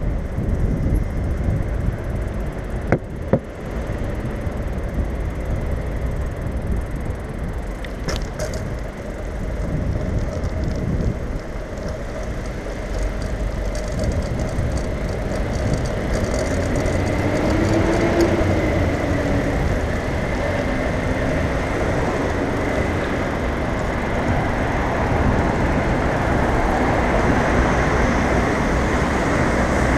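Riding noise from a bicycle on wet paving: steady low rumble of wind on the microphone and tyres on the wet surface, with a couple of sharp knocks in the first ten seconds as the bike goes over bumps. Road traffic grows louder from about halfway on.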